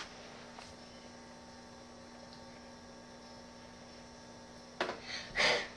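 Low steady electrical mains hum in a quiet room, with a click and a short burst of sound a little before the end.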